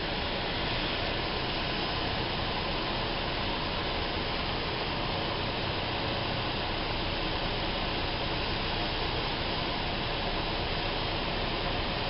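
Steady cabin noise of a single-engine light aircraft in flight: engine and rushing air blended into an even roar of constant loudness. The engine is throttled back for a 180° power-off approach glide.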